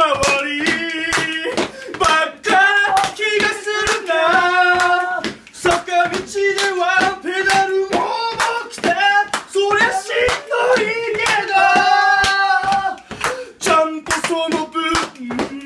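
Men singing a song with long held notes, accompanied by steady rhythmic hand clapping in a small room.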